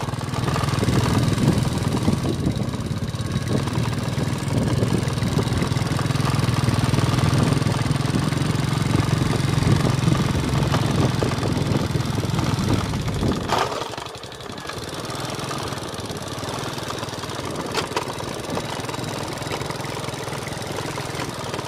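Small motorcycle engine running at riding speed with a steady low hum. About 13 to 14 seconds in the sound drops sharply to a quieter steady running note.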